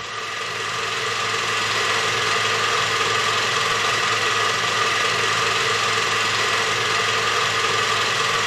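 Film projector sound effect: a steady mechanical whir with hiss and a constant hum, building up over the first couple of seconds and then holding level.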